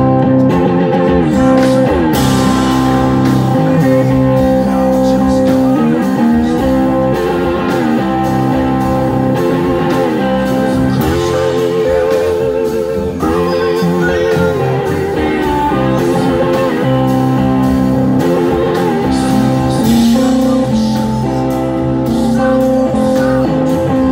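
A live rock and blues band plays loud through the PA: electric guitars, drums and a male lead vocal.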